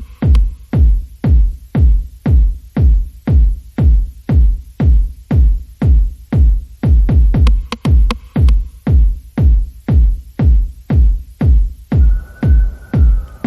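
Electronic background music with a steady, heavy kick-drum beat at about two beats a second; a faint held synth tone comes in near the end.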